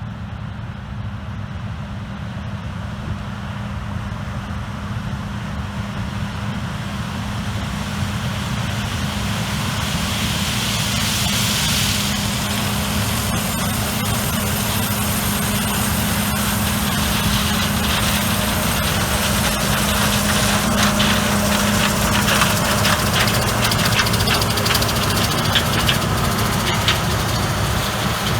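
Engine of heavy farm machinery running steadily with a constant hum, growing louder over the first ten seconds or so, with a rattling crackle over it in the second half.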